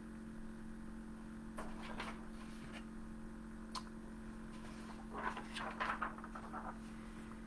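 Quiet room tone with a steady low electrical hum, broken by a few faint rustles and a light click.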